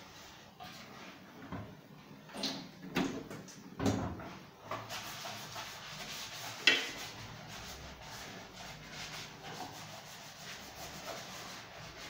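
Hands handling the wiring and connectors inside an opened microwave oven's chassis: rubbing and scraping with a few knocks and clicks, the sharpest about two-thirds of the way in.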